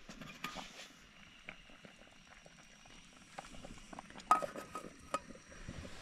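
Small gas camping stove burning under a covered pot of boiling water: a faint, steady hiss. A few light metal clicks and clinks come about four seconds in as the pot and stove are handled.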